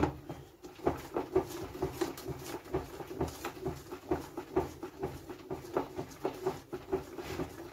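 Homemade liquid soap being stirred by hand in a plastic bucket: a rhythmic sloshing and squelching, about three strokes a second.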